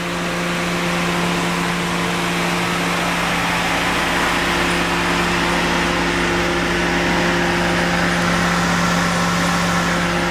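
2014 Ford Escape's 2.0-litre EcoBoost turbocharged four-cylinder engine idling with a steady, even hum.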